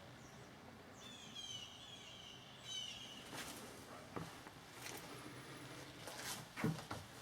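Faint bird chirping, a quick run of high falling notes, followed by a few scattered soft knocks or footsteps, the loudest near the end.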